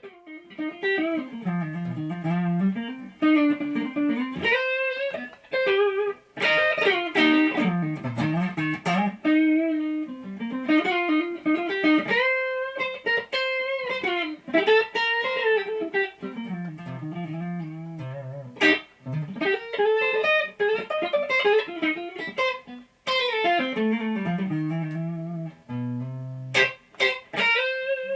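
Electric guitar, a Warmoth '72 Telecaster Deluxe-style partcaster with a two-piece alder body and humbuckers, played through an amp and picked up by the camera's own microphone. It plays a melodic single-note lead line with slides and string bends, with a few sharply picked notes near the end.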